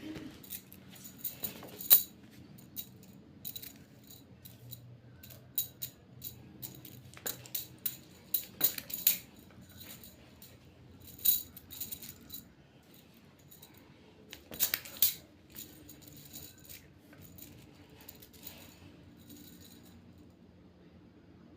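Small stones of a mak kep (Thai jacks) set clicking and clattering against each other and the floor as they are tossed, caught and scooped, in scattered clusters of sharp clinks that die away near the end.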